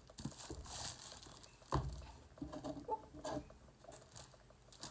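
Parcel packaging rustling and being handled, with scattered light clicks and one thump a little under two seconds in.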